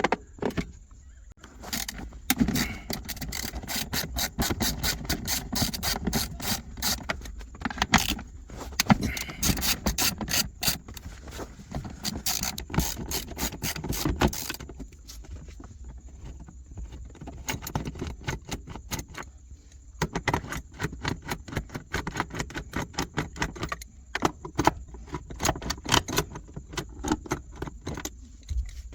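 Hand tools and metal parts clicking and clinking in quick, irregular runs as the car's gear shifter assembly is unbolted, with busier stretches in the first half and near the end.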